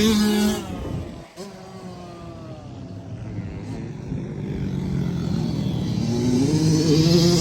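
Off-road vehicle engine running: its note falls and fades about a second in, then an engine note rises in pitch and grows louder toward the end, as a machine revs or approaches.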